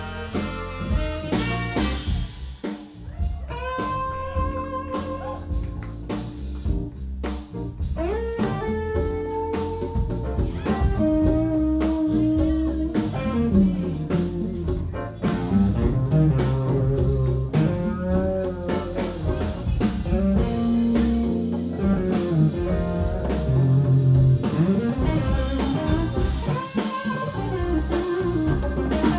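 Live blues band playing an instrumental passage: electric bass, drums, keyboards and electric guitar, with saxophone playing a lead line of long held notes.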